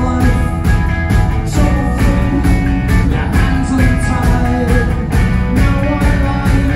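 Live rock band playing: electric guitars and keyboard over a steady drum beat.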